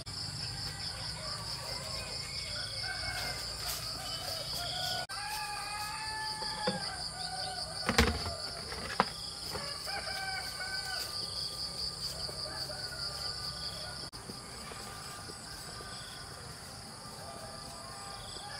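Countryside ambience: a steady high, pulsing insect trill with birds chirping and calling over it. Two sharp knocks, about 8 and 9 seconds in, are the loudest sounds.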